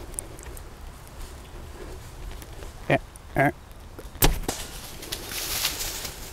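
Two short calls, then the single sharp crack of a bow being shot at a whitetail buck, followed by a second of rustling as the deer runs off through dry leaves.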